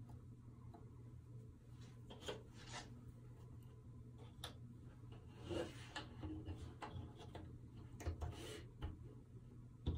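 Paperboard jigsaw puzzle pieces handled and pressed into place on a tabletop: faint scattered rubbing and light clicks, with short scrapes around the middle and near the end.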